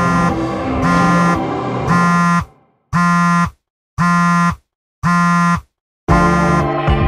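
Smartphone alarm going off: a buzzy electronic beep about once a second, each beep about half a second long. Music plays under the first beeps and drops out for the last three, then loud music cuts in near the end.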